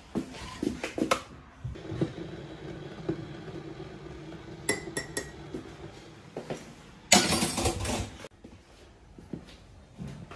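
Kitchen crockery and cutlery being handled while a hot drink is made: a few clicks, a steady low hum, then several sharp ringing clinks of a mug and spoon. About seven seconds in comes a loud rush of noise lasting just over a second.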